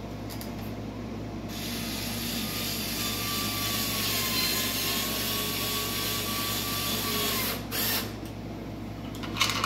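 Cordless screw gun driving a screw into the underside of the bumper for about six seconds, its motor whine dropping slightly in pitch under load. A short burst of the trigger follows about eight seconds in, and another brief one near the end.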